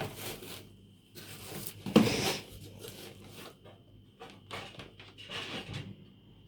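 Knocks, scrapes and rustling as a new dishwasher is handled and set down in place, with the loudest knock about two seconds in.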